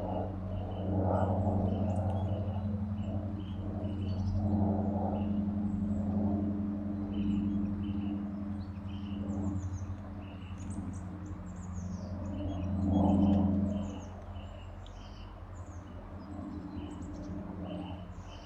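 Small songbirds chirping over and over in short, quick notes, some higher and thinner, above a steady low hum.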